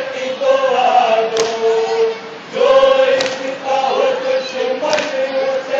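A crowd of men chanting together in long, held phrases, following a lead voice, with a short sharp beat about every two seconds.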